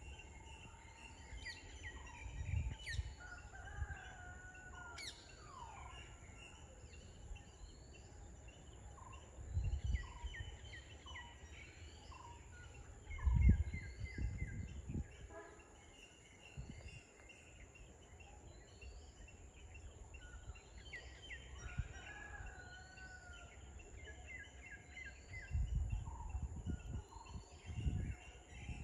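Several wild birds calling in the open air: a high chirp repeated about once a second, quick runs of short falling notes and a few longer whistles, over a steady thin high-pitched hum. A few low rumbles come through, the loudest about halfway through and more near the end.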